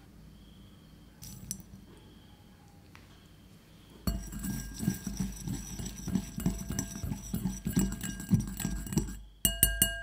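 Wire whisk beating coffee paste in a ceramic bowl, its tines rapidly clicking and scraping against the bowl for about five seconds. Near the end come a few sharp clinks that ring on briefly.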